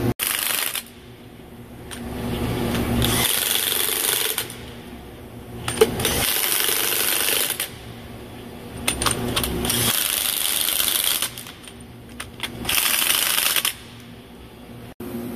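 Heavy impact wrench hammering on the bolts of a vertical lathe's clamping jaw, in five separate bursts of about a second each with short pauses between.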